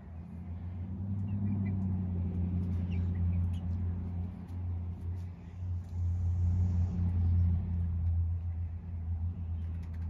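Low, steady motor rumble, swelling a little after the start and holding, with a few faint high chirps over it.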